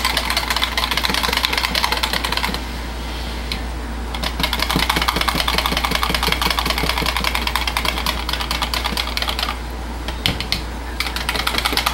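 Small metal whisk rapidly clicking against the sides of a plastic measuring pitcher as it beats coloured cold-process soap batter, pausing briefly twice as it moves between pitchers. The whisking is hurried because the batter is starting to thicken fast.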